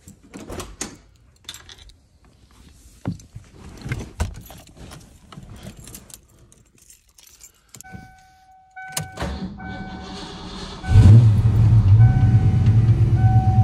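Keys jangling and scattered clicks, then a 1988 Ford Mustang GT's warning chime beeping on and off, the starter cranking for about two seconds, and the 5.0-litre V8 catching and idling loudly near the end. It starts after sitting three days in the cold, a sign that the battery is holding its charge.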